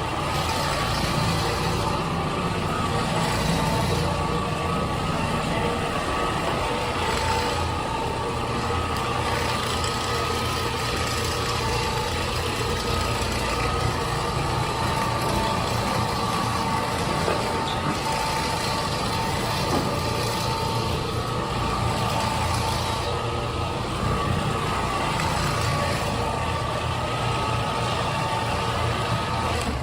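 Rotary floor machine running steadily, its motor humming as it buffs a hardwood floor with a pad.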